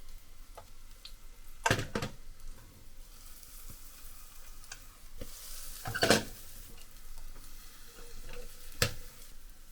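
Egg mixture for a sweet rolled omelet sizzling in a pan of butter and oil, with a few sharp taps of a utensil against the pan: about two seconds in, around six seconds in and near the end.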